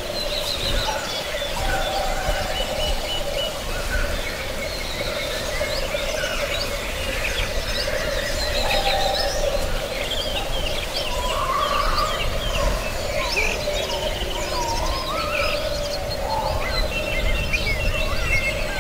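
Many birds chirping and calling at once, a dense woodland chorus of short high calls over a steady lower hum.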